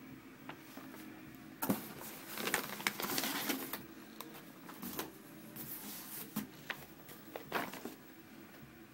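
Thin plastic shopping bag crinkling and rustling in irregular bursts as it is handled and opened. It starts about one and a half seconds in, is densest for a second or so soon after, then comes in scattered crinkles.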